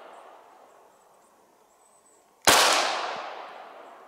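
Gunshots from a 9mm firearm firing home-reloaded 9mm rounds: the tail of one shot fades out near the start, then a single sharp shot about two and a half seconds in rings out in an echo that dies away over about a second and a half.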